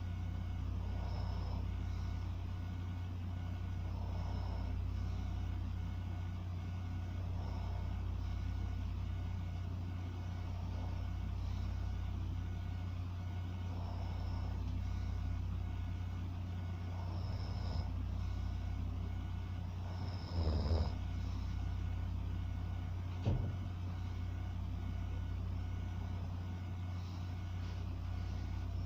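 A sleeping person breathing slowly and evenly, about one breath every three seconds, with light snoring, over a steady low hum. Two short knocks come about two-thirds of the way through.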